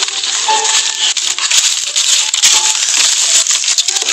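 Rustling and crackling of leaves and dry grass as a bunch of green mangoes on leafy stems is handled, with many small clicks through a steady rustle.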